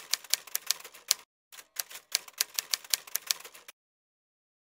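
Typewriter keys clacking in a quick, uneven run. The keys pause briefly a little over a second in, then resume and stop shortly before the end.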